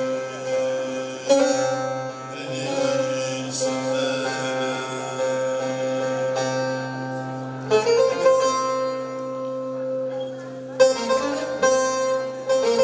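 Turkish folk song on a long-necked bağlama (saz) played over a steady drone, with a man singing held notes. About eight seconds in the singing stops and the bağlama carries on alone with sharper plucked strokes.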